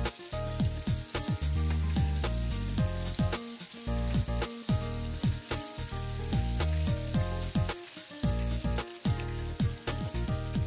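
Battered chicken pieces deep-frying in hot oil, a steady sizzle, part-cooked before being lifted out. Background music with a steady beat and deep bass notes that slide downward plays over it.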